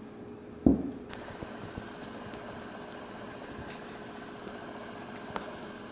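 A single sharp knock on a stainless steel mixing pot about a second in, then a spatula faintly scraping and clicking as it folds flour into thick batter, over a steady hum.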